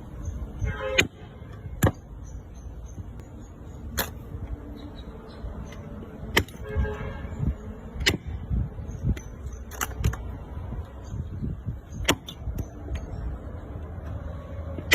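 Knife chopping through a pork leg: sharp single strikes at an irregular pace, roughly one every one to two seconds, over a steady low rumble.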